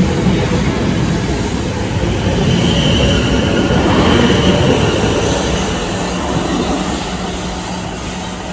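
South Western Railway Class 444 electric train running along the platform, its wheels rumbling on the rails. A brief high wheel squeal comes in the middle, and a steady low hum follows as the sound gradually fades.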